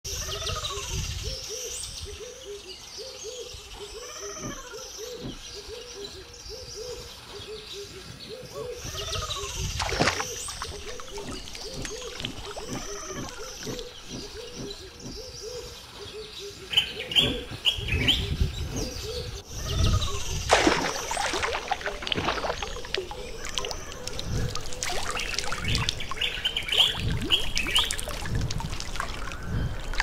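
Birds calling and chirping, with a repeated arched call through the first half. From about 17 seconds in, a run of sharp water splashes as white-throated bee-eaters dive into the pool, mixed with chirps.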